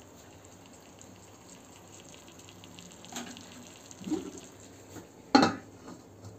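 Tofu and bean sprouts sizzling faintly in a wok, with a light crackle throughout. There are a couple of soft knocks about three and four seconds in, and one sharp, loud clank about five seconds in as a glass pot lid meets the pan.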